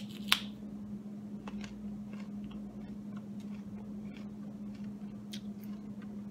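A crisp crunch as teeth snap into a firm, unripe yellow barhi date, followed by quiet chewing with a few faint crunches. A steady low hum runs underneath.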